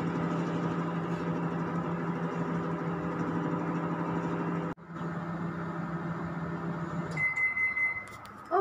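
Microwave oven running with a steady hum, broken off briefly about halfway through. The hum stops near the end and a single long beep follows, marking the end of the heating cycle.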